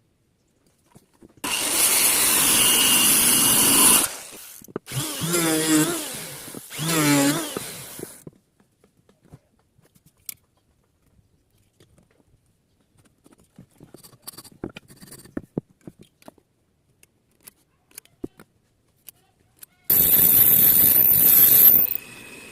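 Handheld electric power tool working wood in short bursts: a loud run, two briefer runs whose pitch sags and recovers, then light clicks and taps of handling for several seconds before another loud run near the end.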